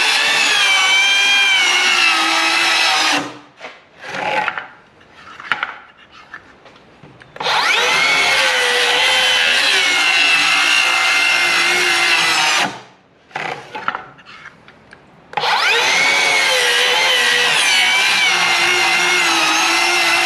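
Makita XSH06 two-battery cordless 7 1/4-inch circular saw ripping full depth through pressure-treated 4x4, its motor pitch sagging and wavering under load. The saw stalls in the cut twice, about three seconds in and about twelve and a half seconds in, with a few short blips of the motor before it starts cutting again.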